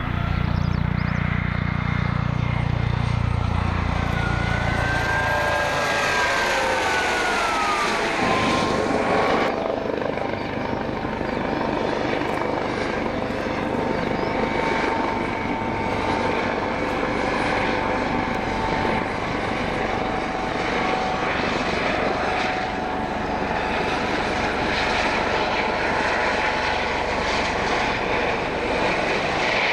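Police helicopter making a fast low pass at about 210 km/h and 30 m height. A deep rotor rumble for the first few seconds gives way to an engine whine that falls in pitch as it goes by, about five to nine seconds in, then a steady rotor and engine noise.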